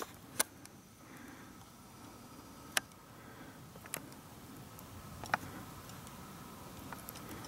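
About four sharp, separate clicks at irregular intervals over a faint steady outdoor hush.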